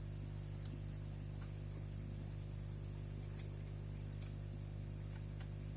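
Steady low electrical hum under a faint high hiss, with a few faint, scattered clicks.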